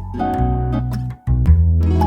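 Background music: plucked guitar notes over a steady bass line, which cuts out briefly a little past the middle.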